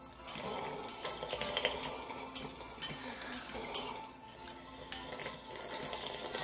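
Chopsticks clicking and scraping against a plate as the last bits of noodles are picked up, with many sharp, irregular clicks.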